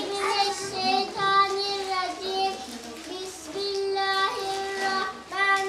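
Young children singing a song, held notes moving step by step through a simple melody.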